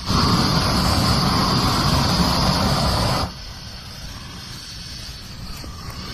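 Propane weed burner torch running, a loud rushing hiss with a low rumble under it, that drops suddenly to a quieter level about three seconds in.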